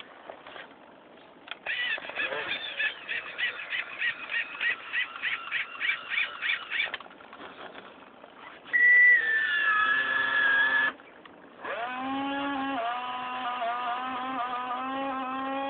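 A radio-controlled excavator's electric motors whine in several stretches, changing pitch as it works. First comes a pulsing whine of about four pulses a second, then a tone falling in pitch, then a steady whine lasting about four seconds.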